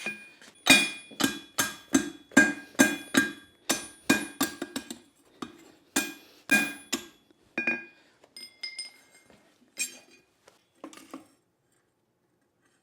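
Hand hammer striking hot leaf-spring steel on an anvil, forging down tong reins: ringing blows at about two a second. The blows turn lighter and sparser near the end and stop about eleven seconds in.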